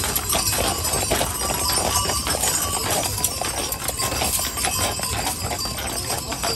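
Hooves of a team of heavy draft horses clip-clopping on asphalt as they walk, pulling a wagon, a busy run of irregular hoof strikes.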